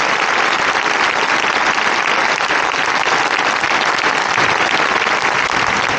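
Large crowd applauding, a dense, steady clapping.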